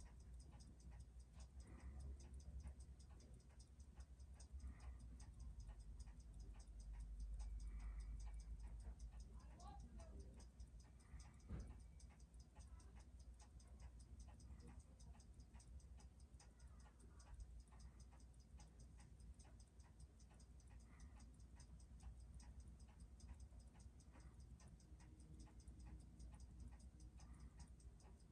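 Seiko 6139 automatic chronograph movement ticking fast and evenly, about six beats a second, on a timegrapher as the freshly serviced movement runs in its new lubricants.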